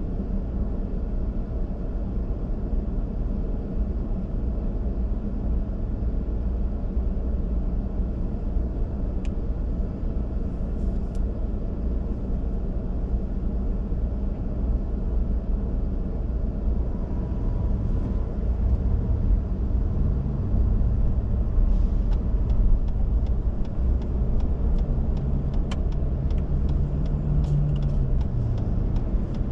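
A car driving, with a steady low engine and road rumble. In the second half the engine note rises and falls, and faint regular ticking runs through the last several seconds.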